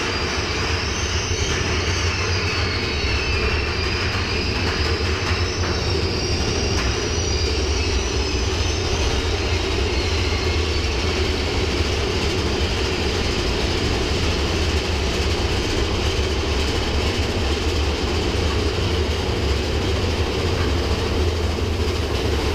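Big Thunder Mountain Railroad mine-train roller coaster running along its track, heard from aboard: a steady rumble of the train, with a faint high squeal wavering in and out during roughly the first nine seconds.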